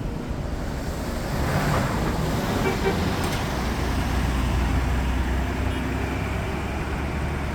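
Bus engine running, a low steady rumble that grows stronger in the second half, mixed with road traffic noise.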